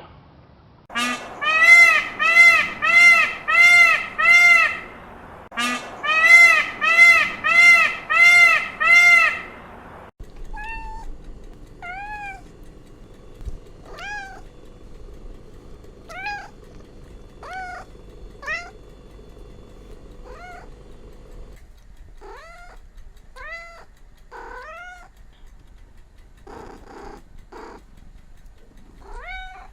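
Cats meowing. First come two runs of quick, evenly repeated meows, about two a second. Then, over a faint steady hum, slower single meows follow every second or two.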